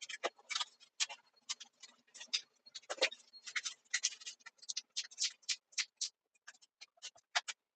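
Rapid, irregular clicking and clattering, several sharp ticks and knocks a second, sped up to three times normal speed.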